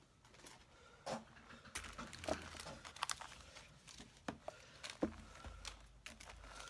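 Paper and plastic sleeves rustling, with scattered light taps and clicks, as a ring-bound planner is slid across the desk and opened.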